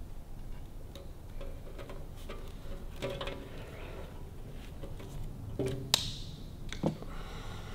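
Hand crimping tool clicking as a ring terminal is crimped onto a wire, with scattered small clicks and handling sounds. The sharpest click comes about six seconds in.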